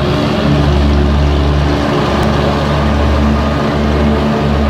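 Small diesel locomotive's engine running steadily and loudly at close range, pushing a passenger car into a timber-lined tunnel.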